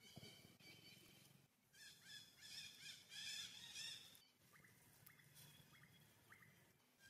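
Faint forest birds calling: a run of quick repeated chirping notes about two seconds in, then a few short rising chirps, over quiet background.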